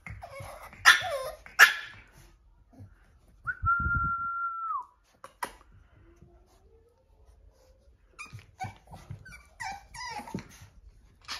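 French bulldog puppies whimpering and giving short, high yaps, in a cluster at the start and another near the end. About four seconds in there is one steady high whistle lasting about a second.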